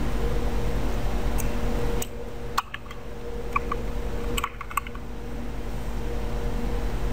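Computer keyboard keys, the arrow keys, pressed one at a time: a handful of separate clicks between about one and five seconds in. Under them runs a steady electrical hum.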